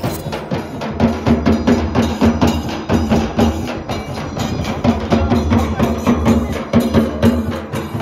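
A group of Adivasi dance drummers playing a fast, even beat on drums slung from their shoulders.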